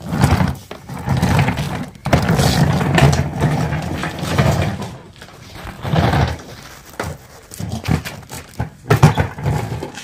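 A Henry vacuum cleaner, switched off, dragged and rolled across a gritty concrete floor in several loud, uneven bursts of scraping and knocking.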